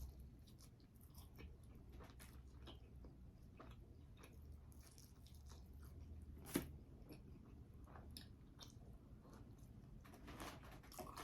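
Faint chewing: a person eating, with small mouth clicks throughout and one sharper click about six and a half seconds in.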